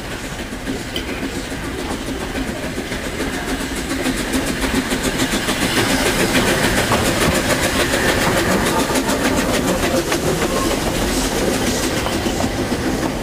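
Narrow-gauge steam train approaching and running past at close range, its wheels clicking over the rails, growing louder over the first half and then holding steady as the carriages go by.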